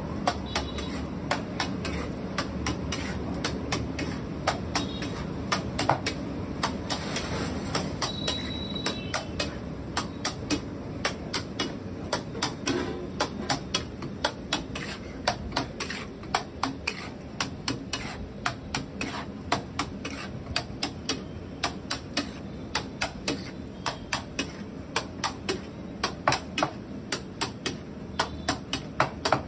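Metal spatula knocking and scraping on a large iron tawa, about two strikes a second, as the bhaji is mashed and stirred, over a steady kitchen noise.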